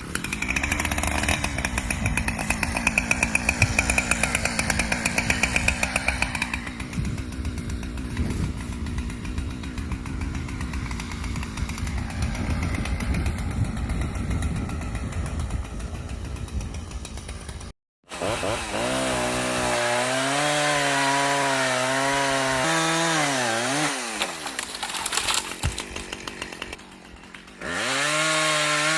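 Husqvarna Rancher 455 two-stroke chainsaw running at full throttle through wood. After a sudden break about two-thirds of the way in, it runs on with its engine pitch wavering up and down as the load changes, dropping low for a moment and rising again near the end.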